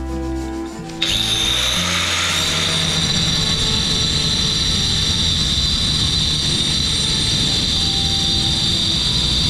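DeWalt angle grinder with a diamond cutting disc cutting through the base of a ceramic bowl: a steady high whine that starts abruptly about a second in and holds, over background music.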